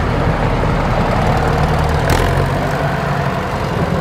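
Minneapolis-Moline tractor engine running steadily at low speed as the tractor moves slowly, with a brief hiss about halfway through.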